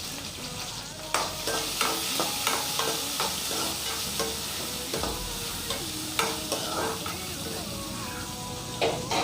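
Chopped shallots and chillies sizzling in hot oil in a pan, with a steady hiss, while a spatula stirs them, scraping and tapping the pan in quick repeated strokes. A louder knock comes near the end.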